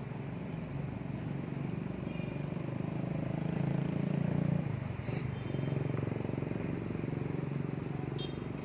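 A motor vehicle engine running nearby, a low steady rumble that swells to its loudest about four seconds in, dips briefly, then picks up again. A short click comes about five seconds in.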